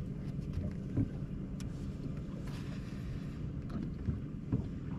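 Steady low rumble of wind and water around a boat on open water, with a few faint clicks.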